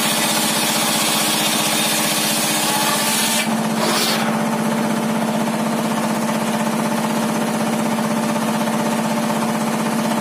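Homemade circular table saw ripping a large timber beam: the blade cutting through the wood gives a dense hiss over the machine's steady hum. About three and a half seconds in the hiss drops away sharply and the blade runs on with only the hum.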